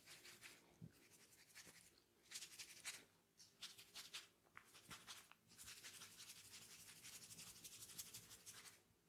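Faint, close-up scratchy rustling of fingers rubbing and scratching through hair on the scalp during a head massage, in quick clusters of strokes with short pauses.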